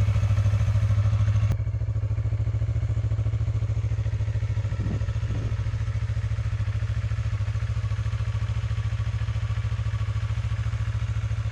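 Yamaha YZF-R3's 321cc liquid-cooled parallel-twin engine idling steadily after a rev.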